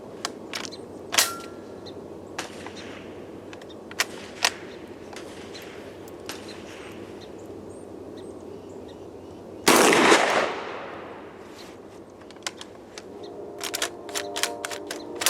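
Centurion BP12 shotgun being fired, with sharp reports and clicks scattered through and the loudest shot about ten seconds in, which echoes away over about a second. A run of quick clicks near the end.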